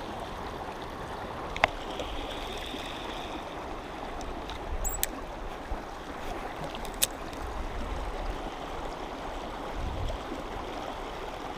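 Small rocky creek's water running and trickling over stones, a steady rushing. A few sharp clicks break in, once about a second and a half in and twice later on.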